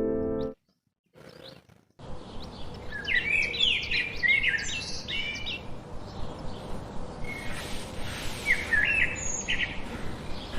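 Birds chirping in quick clusters of short, high, sliding notes over a steady outdoor background hiss, starting about two seconds in after a brief piano phrase stops.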